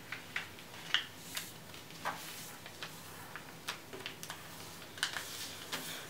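Sheets of paper being folded and creased by hand against a table: scattered soft crinkles and small sharp clicks, about one every half second to second.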